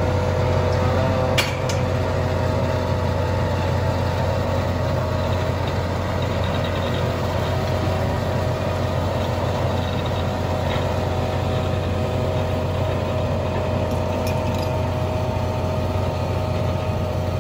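Scania P420 truck's diesel engine running steadily while it drives the loader crane's hydraulics as the crane swings and lowers a clamshell grab bucket, with a steady whine over the engine note. A couple of faint clicks from the crane.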